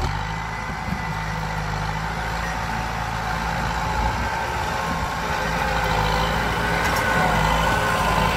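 Tractor engine running steadily under a low, even engine note, growing a little louder about halfway through.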